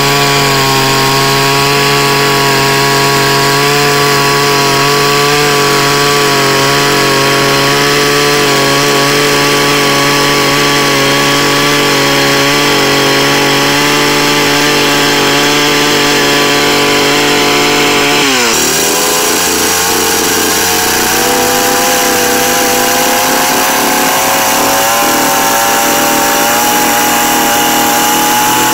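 Stihl chainsaw running at high revs as it cuts a groove along the edge of a wooden board. The engine note drops suddenly about two-thirds of the way through, climbs slowly again, then falls away at the very end.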